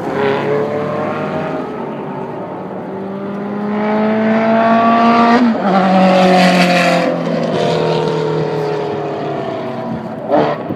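Sports car passing at speed on a racetrack. Its engine note climbs in pitch and loudness as it approaches, drops sharply as it goes by about five and a half seconds in, then fades while falling in pitch.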